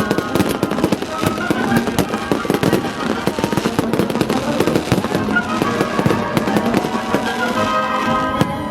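Fireworks salute going off in rapid, dense bangs and crackles, over a military song playing loudly.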